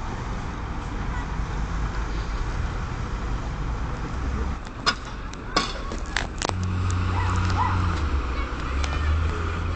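Scania lorry's diesel engine running low and steady, then pulling harder and louder from about two-thirds through as the stuck truck tries to move in the snow. A few sharp clicks come just before it picks up.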